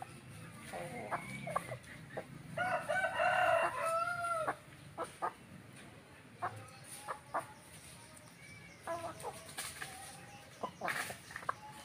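An ayam kampung (Indonesian village chicken) rooster crows once, a call of about two seconds that begins a few seconds in. Short clucks from the foraging chickens come before and after it.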